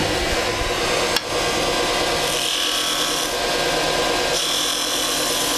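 Wood lathe running steadily while a turning tool cuts into the spinning wooden spindle: a scraping cut that swells twice, for about a second and then for a couple of seconds, with a single click about a second in.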